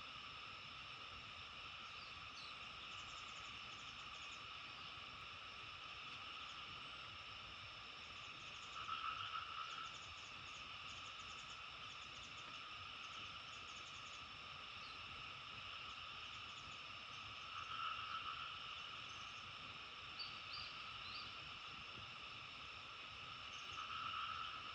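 Steady frog chorus, with a louder call swelling up three times, about every eight or nine seconds, and faint short high chirps above it.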